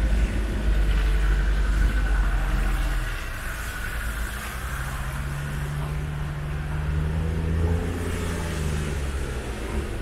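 A 4x4's engine running as it drives off-road, with a heavy low rumble for the first three seconds, then a steady engine note that rises a little and eases off again between about seven and nine seconds in.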